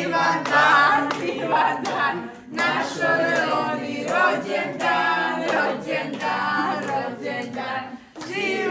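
A small group of family voices singing a birthday song together, unaccompanied, with some hand clapping.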